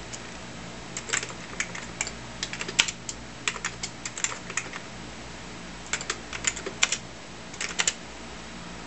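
Keystrokes on an Amiga computer keyboard, typed in short bursts with pauses between, over a steady low hum.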